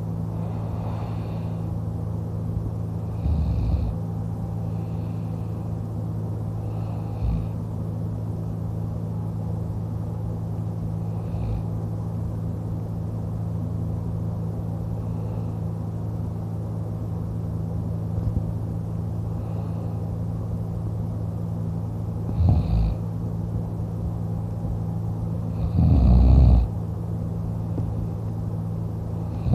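A man snoring in his sleep while lying on his back with his mouth open. Single snores come every few seconds, and the loudest and longest comes near the end. A steady low hum runs underneath.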